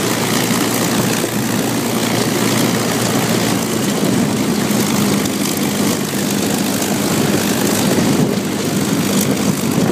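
P-51 Mustang's Packard Merlin V12 engine running at low taxi power as the fighter rolls slowly past, a loud steady propeller-engine drone with a constant low hum.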